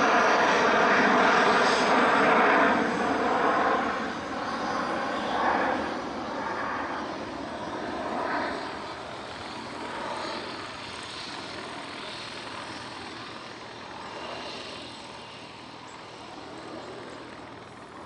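Bombardier Global Express business jet's twin rear-mounted Rolls-Royce BR710 turbofans at climb power just after takeoff. The roar is loud for the first three seconds or so, then fades steadily as the jet climbs away.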